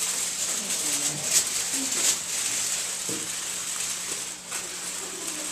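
Tin foil crinkling now and then as it is crumpled and shaped by hand, over a steady hiss and faint murmured voices.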